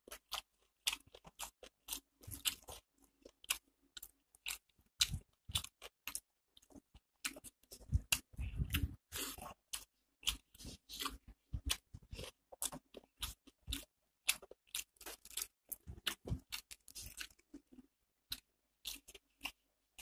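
Close-up chewing of a mouthful of rice and fried onion pakora: irregular crisp crunches and wet mouth clicks, heavier for a moment near the middle.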